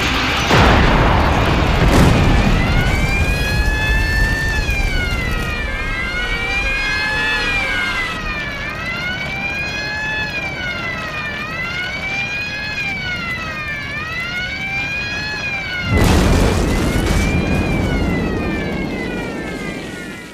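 Dramatised crash landing of an airliner with a failed undercarriage: heavy crashing noise about half a second and two seconds in, then several emergency-vehicle sirens wailing up and down together, overlapping. About sixteen seconds in comes another loud rush of noise, an explosion and fire, which fades out at the end.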